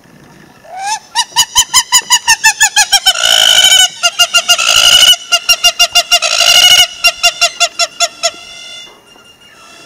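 Hamerkop calling: a rapid run of loud, evenly repeated notes, about ten a second, opening with a rising note about a second in. In the middle the notes run together into longer calls, and the series stops after about eight seconds.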